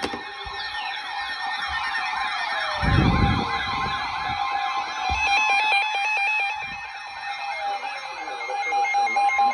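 Several weather alert radios sounding an alert at once: a fast warbling siren tone over steady alert tones, with rapid beeping joining in past the middle. A short dull thump comes about three seconds in.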